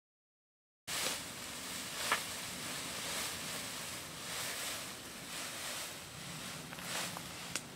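Crinkly plastic sheeting rustling and crackling as it is moved, starting suddenly about a second in after silence, in soft swells about once a second with a few sharp crackles.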